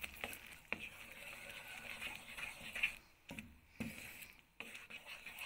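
Wooden spatula stirring a thick chocolate-cream mixture with cherries in a metal pan: soft scraping and squelching, with a few light knocks of the spatula against the pan.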